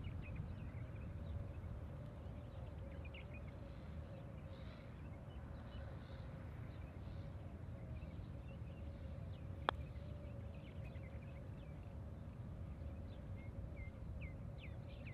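A putter strikes a golf ball once, a single sharp click about ten seconds in. Underneath runs a steady machine hum from course maintenance work, with faint bird chirps.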